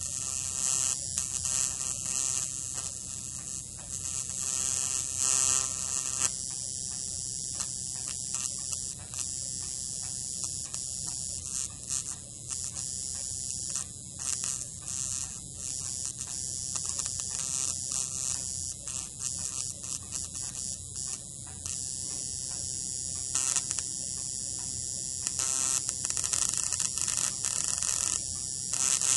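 Small high-voltage spark arcing between two wire leads from an old radio transformer, driven by a 555 timer in PWM mode through a power MOSFET. An electric buzz with a high hiss that flickers in and out, strongest in the first few seconds.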